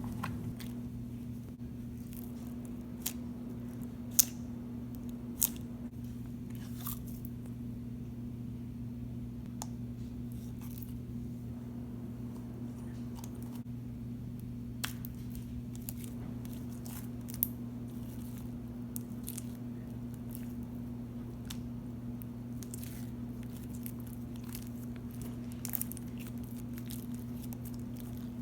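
Avalanche slime being squished and stretched by hand, giving scattered small clicks and pops, a few of them louder, over a steady low hum.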